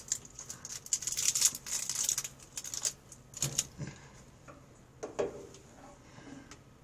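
A Jolly Rancher's plastic wrapper crinkling and crackling as it is twisted open: a quick flurry of small crackles for about three seconds, then a couple of single rustles.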